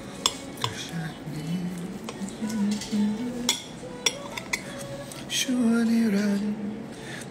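A handful of sharp clicks and clinks, one shortly after the start and several more around the middle. Under them runs a low, wavering voice-like sound.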